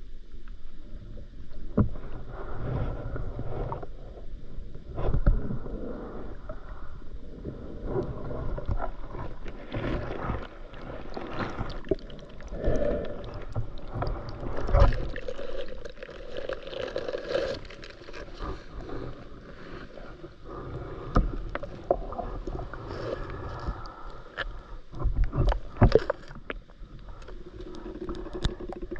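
Water noise around a diver's camera: a shifting rush with many scattered knocks and clicks.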